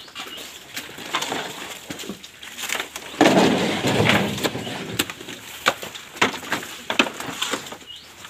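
Banana stems and leaves being cut and handled: a string of sharp cracks and snaps, with a loud rustling crash about three seconds in.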